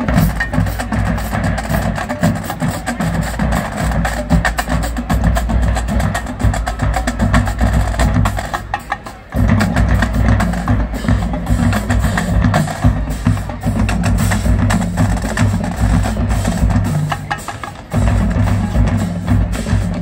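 Marching drumline playing a cadence: snare drums, multi-tenor drums, pitched bass drums and cymbals, with rapid stick strokes over heavy bass drum hits. Twice the low drums fall away briefly and then come back in abruptly, about nine seconds in and again near the end.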